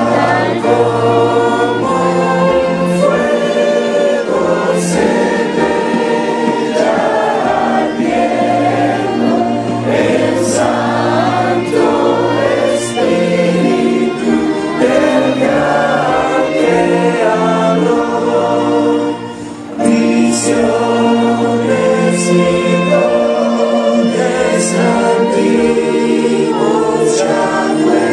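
Background music: a choir singing a slow, hymn-like song in sustained chords, with a few sharp hits along the way and a brief drop in level just before the 20-second mark.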